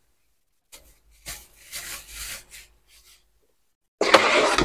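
Soft, intermittent rustling and rubbing as plastic bags of raw meat are handled, followed near the end by a sudden, much louder burst of handling noise.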